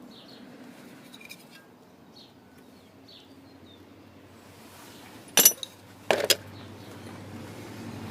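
Faint clicks of small metal parts being handled, then two sharp metal clinks about five and six seconds in, the second a quick double.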